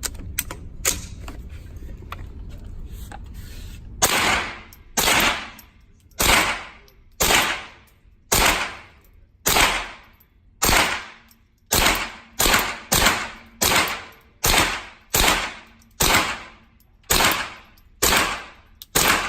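A firearm fired one shot at a time in a long, steady string, about eighteen shots at roughly one a second, quickening a little in the middle. Each shot trails a short echo. A couple of sharp clicks from the gun being handled come just before the firing begins.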